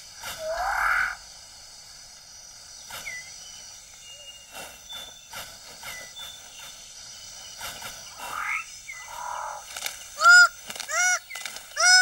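Rainforest birds of paradise: a couple of soft rustles at the start, then quiet forest with a faint insect trill and scattered small calls. From about ten seconds in, a greater bird of paradise starts a quick series of loud honking calls, each note rising then falling in pitch.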